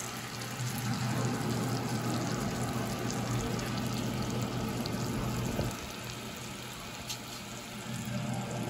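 Flour-dredged chicken breasts sizzling as they fry in bacon grease in a skillet, over a steady low hum. The sizzle eases a little about six seconds in.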